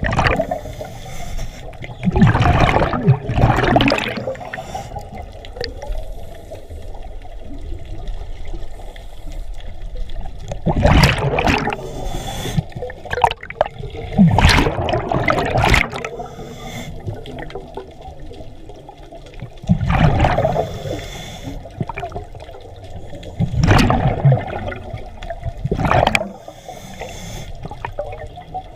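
Scuba regulator breathing underwater: gushing bursts of exhaled bubbles every few seconds, with quieter stretches of inhalation between.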